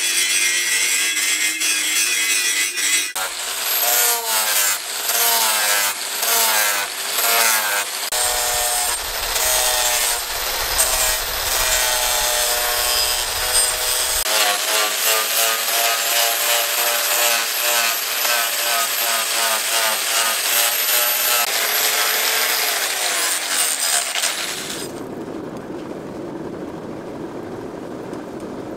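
Angle grinder with a sanding disc grinding a leaf-spring steel axe head, its motor whine dipping and recovering in pitch again and again as it is pressed into the steel. About 25 seconds in it stops and gives way to a steady, lower rushing of a charcoal forge fire.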